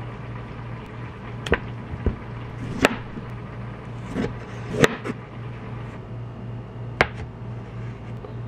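Chef's knife chopping tomatoes on a cutting board: about six separate knife strikes on the board at irregular spacing, over a steady low hum.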